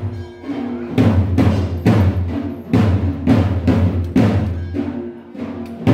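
Music with heavy drum strokes in a steady beat, about two a second, over sustained pitched notes, starting about half a second in.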